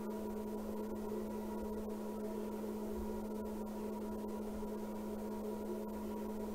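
Steady electrical hum with a constant low tone, unchanging throughout.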